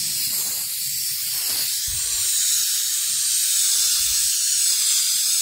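Aerosol can of Herculiner spray-on bed liner spraying a coat: a steady, slightly wavering hiss.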